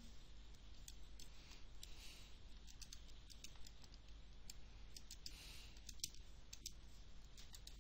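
Faint, irregular key clicks as numbers are keyed into a calculation, several presses every second with small gaps between runs.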